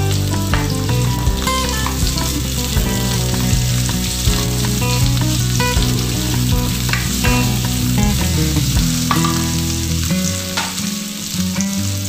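Sliced onions and garlic sizzling in hot oil in a nonstick wok, stirred with a plastic spatula that scrapes and taps against the pan now and then. Steady low music tones run underneath and thin out about nine seconds in.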